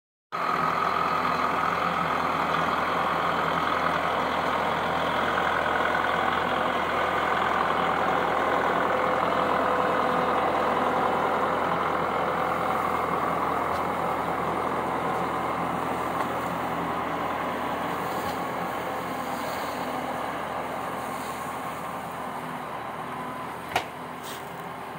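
Kubota tractor's diesel engine running steadily while skidding logs, slowly growing quieter as it pulls away. A single sharp click near the end.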